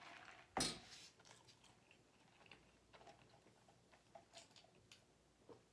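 A person sipping lemonade through a straw from a lidded fountain cup, with faint mouth clicks and swallows. One short, loud rattle about half a second in as the cup is lifted.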